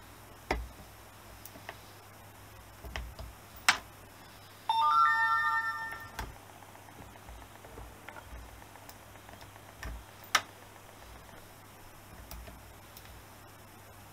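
Pliers and the steel parts of a moped centre stand clicking and tapping now and then. About a third of the way in comes a loud bell-like ringing chime of several pitches, held for about a second and a half and then fading.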